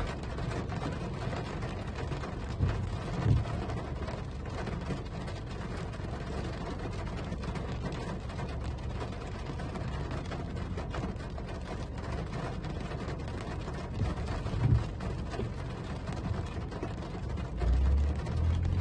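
Toyota Camry driving on a wet road: steady rumble and tyre noise, with a low thump about 3 seconds in and another near 15 seconds.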